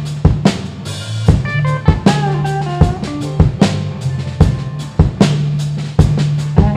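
Live blues band playing an instrumental passage: a drum kit keeps a steady beat of kick, snare and rimshots under a held bass line, with short melodic lead phrases over it and no singing.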